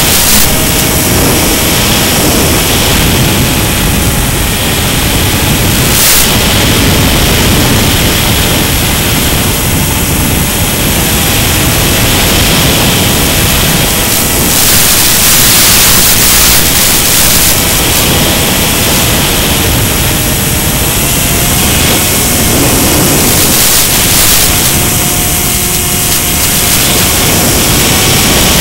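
Loud, steady static hiss on the audio of an analog FPV video feed from a small RC plane, with faint drifting tones underneath.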